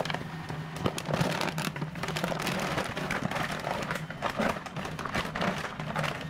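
Paper flour sack rustling, with many small crackles, as flour is poured out of it into a large steel mixer bowl, over a steady low hum.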